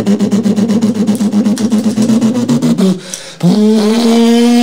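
A man's voice making a loud, rapid pulsing warble, about ten beats a second, for about three seconds. After a short break it holds one long steady note.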